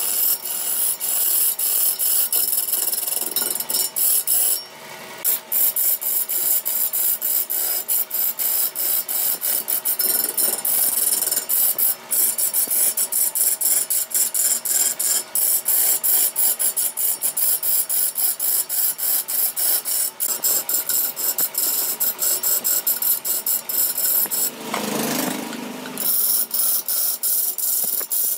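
Hand-held turning tool scraping a large ebony root blank spinning on a big wood lathe: a loud, continuous rasp with a fast, regular chatter as the tool bites the wood, pausing briefly about five seconds in.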